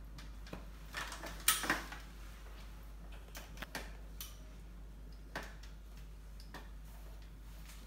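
Scattered light rustles and clicks of hands working a scarf's fabric and pins on a mannequin head, busiest about a second and a half in, over a low steady hum.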